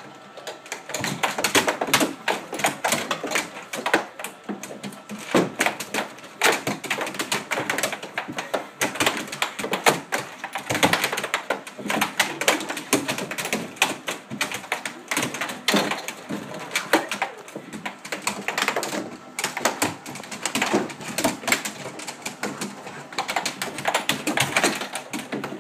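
Air hockey puck and plastic mallets clacking rapidly and irregularly against each other and the table's rails, with a dog's claws scrabbling on the tabletop.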